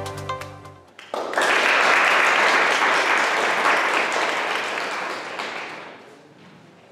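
Audience applauding, starting abruptly about a second in and dying away near the end. Electronic background music fades out in the first second.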